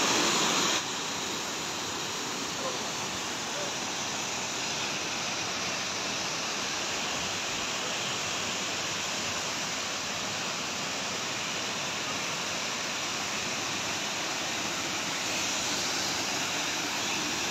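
Waterfall's steady rush of falling water, a little louder for the first second.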